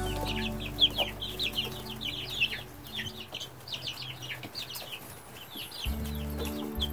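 A brood of three-week-old chicks peeping, many short high calls sliding downward in quick overlapping succession, over a low steady hum.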